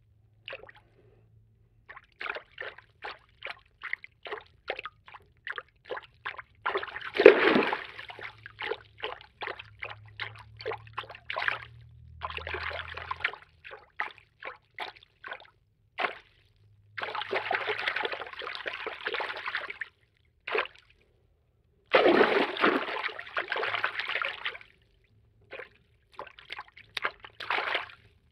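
Water-movement foley sound effects: a rapid series of short splashes and drips, about two a second, broken by several longer stretches of continuous water movement, the loudest about seven seconds in.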